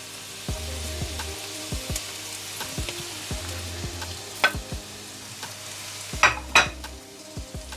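Onions, carrots and garlic frying in hot oil in a pan: a steady sizzle, with a utensil stirring and clicking against the pan now and then, loudest twice about six seconds in.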